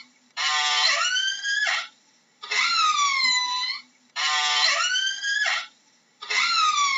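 Orca (killer whale) calls: a run of four high, whistle-like calls, each about a second and a half long, that glide in pitch. The calls alternate between one that dips and then levels off and one that sweeps upward, with short gaps between them.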